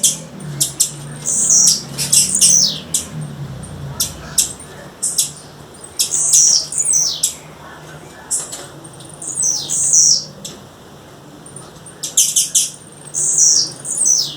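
Female blue-black grassquit (tiziu) calling: sharp, high chip notes in quick runs, mixed with short buzzy notes that fall in pitch, repeated several times.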